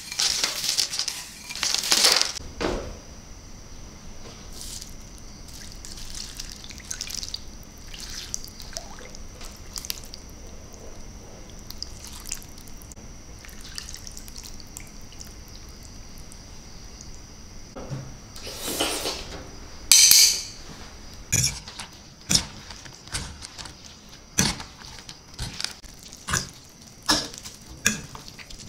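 Kitchen food-preparation sounds from a raw oyster salad. Spicy sauce is poured from a bowl over the oysters, then the salad is tossed on the tray. There is a loud rustling burst about two-thirds of the way through, and sharp clinks about once a second near the end.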